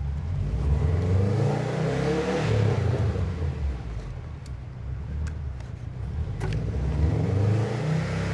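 Car engine being revved up and down twice, easing off between the revs with a few sharp clicks. The engine is judged to be missing (misfiring).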